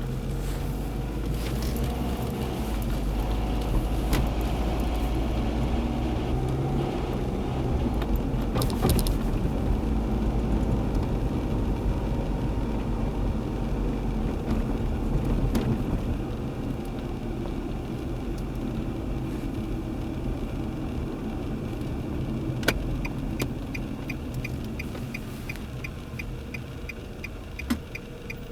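2003 Nissan Altima 2.5S's four-cylinder engine running, with steady engine and road rumble. A rapid, even ticking, about three ticks a second, starts near the end.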